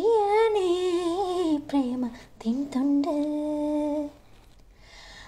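A woman's solo voice singing unaccompanied. It draws out a long, ornamented note that wavers up and down, then settles on lower held notes, and breaks off about a second before the end.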